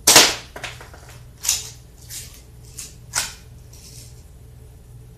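One sharp snap, the shot of a Daisy 117 Targeteer spring-powered BB pistol. It is followed by about five softer clicks and scrapes spread over the next few seconds.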